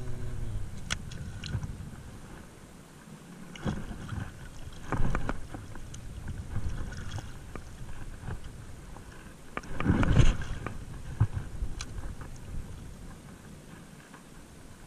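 Wind buffeting an action-camera microphone over shallow sea, with water sloshing and irregular louder gusts or knocks about four, five and ten seconds in, easing off near the end.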